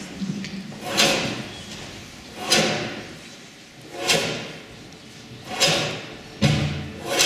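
A steady beat of sharp swishing hits, one about every second and a half, each with a short fading tail, with a heavier low thump near the end.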